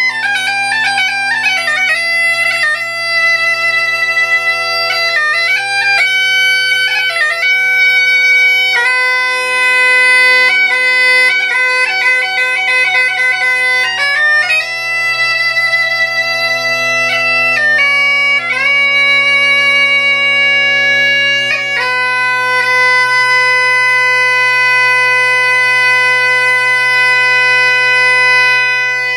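Gaita (bagpipe) tuned in C at 432 Hz playing a tune: the chanter's melody runs over a steady low drone. There are quick, ornamented note changes in the first several seconds, then longer held notes.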